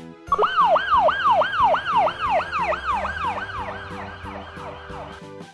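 Cartoon siren sound effect: a fast, repeating wail that sweeps up and falls about three times a second, slowly fading and stopping just before the end, over light background music.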